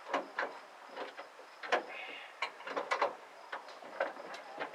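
An irregular series of sharp clicks and knocks, a dozen or so in a few seconds, over a faint steady high-pitched tone.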